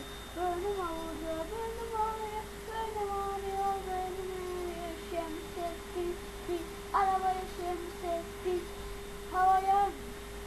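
A boy singing a simple tune in held, sliding notes, with two louder notes about seven and nine and a half seconds in. A steady tone runs underneath.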